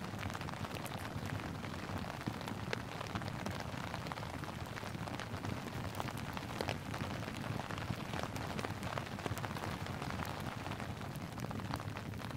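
Steady rain falling: an even hiss with many separate drop ticks scattered through it.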